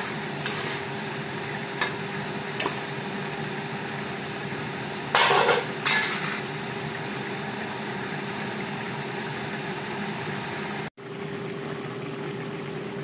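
A metal spatula knocks and scrapes against a steel kadhai a few times in the first seconds as a thick curry is stirred, over the steady bubbling hiss of the curry simmering on a gas burner. A louder scraping rustle comes about five seconds in, and the sound cuts out for an instant near eleven seconds.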